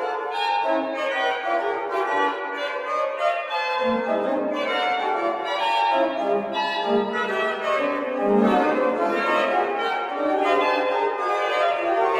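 Pipe organ played on its manuals: a busy passage of many short notes. Lower notes join in about four seconds in.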